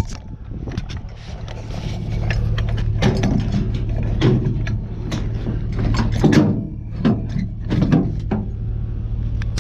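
Vehicle engine running steadily, with a series of knocks and clanks over it from about three seconds in, like scrap metal being handled.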